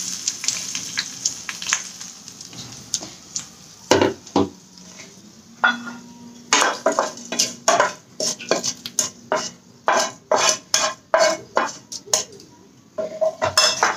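A spoon scraping and knocking against a kadai, tapping the cooled tempering of mustard seeds, garlic and chillies in oil out into a bowl of radish-leaf chutney. The knocks come quickly, about two or three a second, through the second half, after a soft hiss at the start.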